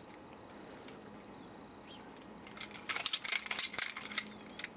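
Steel finger blades and riveted metal parts of a knife glove clicking and clinking as the gloved fingers flex, in a quick irregular run that starts about halfway through after a quiet first half.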